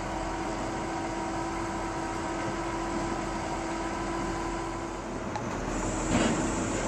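Utility boom truck's engine running steadily while its crane lifts a wooden power pole, with a brief louder noise about six seconds in.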